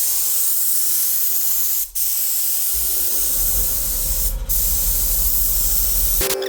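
Primer being sprayed onto wood in a steady hiss, with a brief break about two seconds in and a short dip a couple of seconds later; a low rumble joins partway through.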